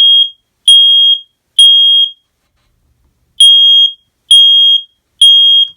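Smoke alarm sounding its test: loud, high-pitched beeps in the three-beep temporal evacuation pattern, three beeps about half a second long, a pause of about a second, then three more.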